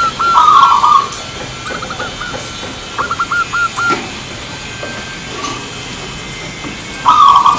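Zebra dove (local perkutut) cooing: a loud, rolling coo about half a second in, a few short quick notes near 2 s, a run of five quick hooked notes about 3 s in, and another loud coo near the end.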